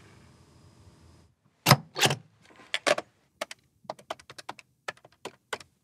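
Buttons on an office desk phone's keypad pressed one after another: a quick, uneven series of about fifteen short plastic clicks, the first two the loudest, starting after a moment of quiet room tone.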